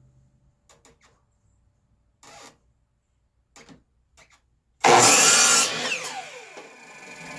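A few light knocks of wood being handled, then a power miter saw cuts through a board about five seconds in. The blade then spins down with a falling whine.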